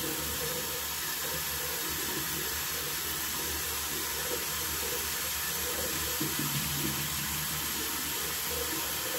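Bathroom sink tap running steadily, a constant hiss of water pouring into the basin.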